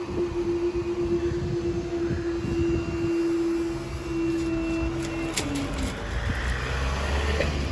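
Level crossing barrier motor whining at one steady pitch as the barrier arms rise. Near the end of the lift the pitch drops slightly, then the motor stops with a click as the arms come to rest upright. A low rumble follows.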